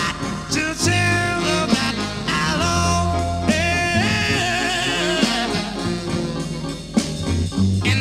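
Music: an instrumental break between the sung lines of a slow love song, a melody over a bass line and a steady beat, with no lead vocal.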